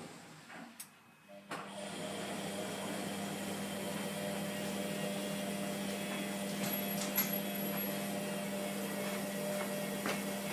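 Hotpoint Aquarius WMF720P washing machine running on a wash cycle: after a brief quiet pause, a steady hum starts about a second and a half in and carries on, with a few light clicks.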